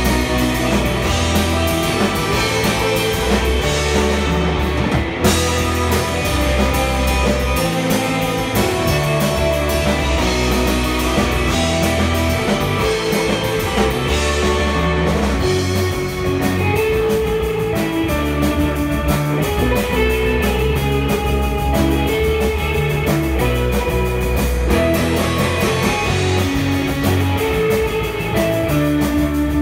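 Live rock band playing an instrumental: electric guitars with a lead guitar line over drums, loud and continuous.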